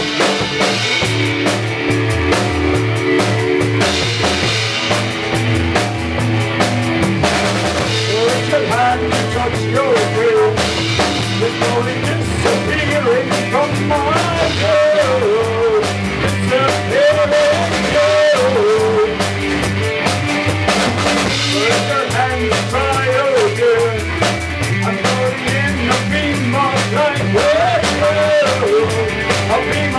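A rock band playing: drum kit keeping a steady beat under guitar, with a wavering melody line coming in about eight seconds in.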